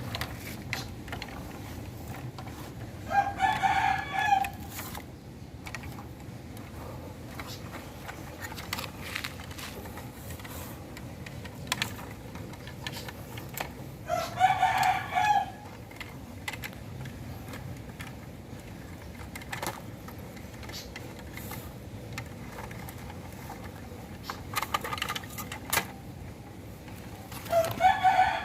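A rooster crowing three times, each crow about a second and a half long and roughly eleven seconds apart. Faint scattered clicks and scrapes come between the crows.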